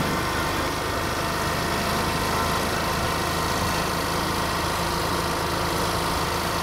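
A motor vehicle's engine running steadily at low speed, with an even hiss over it.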